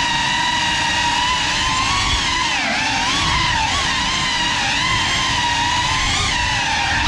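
GEPRC CineLog 35 ducted cinewhoop drone's motors and propellers whining in flight, the pitch rising and dipping with the throttle, with a rough rush of prop wash underneath.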